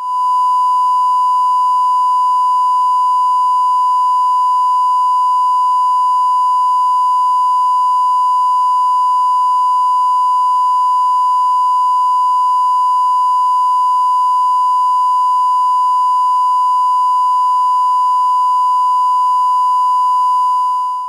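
Steady 1 kHz sine test tone, the reference tone played with broadcast colour bars, holding one unchanging high-pitched note.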